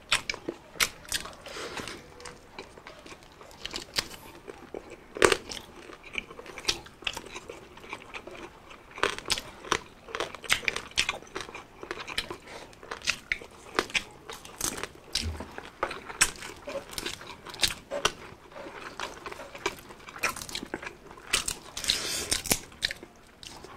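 Close-up crunching and chewing of crispy deep-fried pork (chicharon bulaklak and bagnet) eaten by hand with rice: many sharp, irregular crunches with wet chewing between them.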